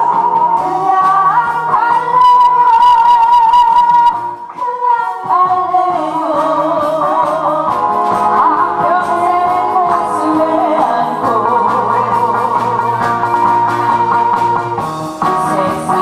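A woman singing into a microphone with vibrato, over instrumental accompaniment.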